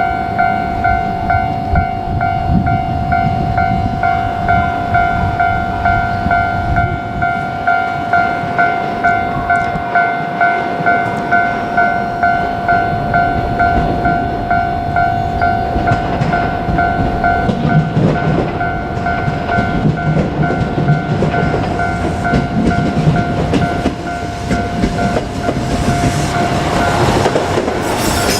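Japanese level-crossing warning bell ringing in a steady, evenly paced pattern, a little more than once a second, stopping near the end. Under it a KiHa 200 diesel railcar runs over the crossing with a low rumble and wheel clatter.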